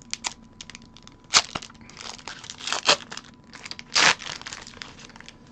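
Foil Pokémon booster pack wrapper crinkling and tearing as it is opened by hand, with three louder crackles about a second and a half, three and four seconds in.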